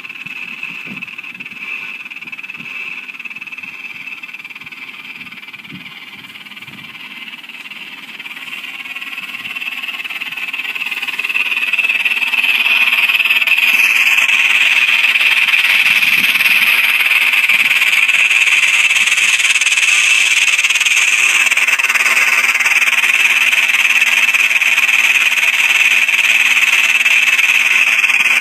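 Experimental electronic noise piece: a high, hissing drone that swells over a few seconds about ten seconds in, then holds loud and steady, with faint low knocks underneath at first.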